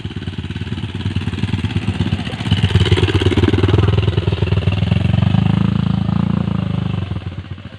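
Trail motorcycle engine revving hard. It builds to its loudest about three seconds in, holds there until about six and a half seconds, then eases off.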